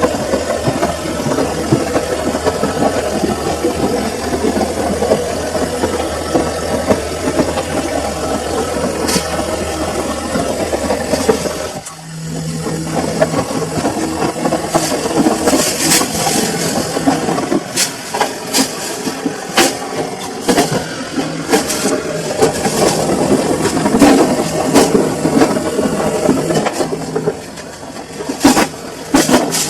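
Samsung washing machine running, its drum motor turning with rattling and sharp knocks. It drops off briefly about twelve seconds in, then resumes with a steady hum and frequent clicks.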